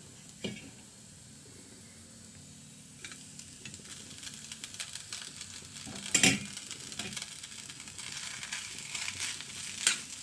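Cabbage and capsicum sizzling in a hot wok, the crackle growing denser after a few seconds. About six seconds in, a loud clack of the steel spatula on the wok as boiled noodles go in, then the spatula scraping and tossing the noodles in the sizzle.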